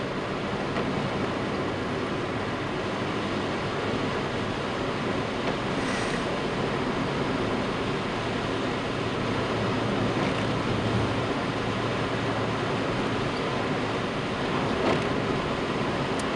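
Steady road and tyre noise with engine hum heard inside a moving car's cabin, the tyres on wet asphalt. A light tick near the end as the windscreen wipers sweep.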